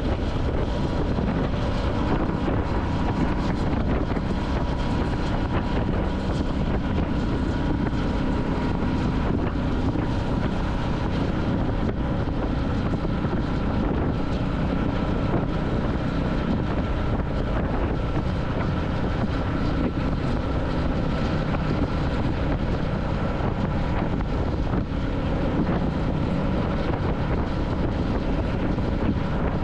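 Royal Enfield Classic 350's single-cylinder engine running steadily while riding, with wind noise on the microphone.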